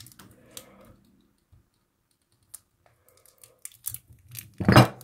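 Two 1-kilo Cook Islands silver coin bars in plastic wrapping being handled: light clicks and taps as they are gripped and shifted, then one loud, heavy knock near the end as the metal bars strike.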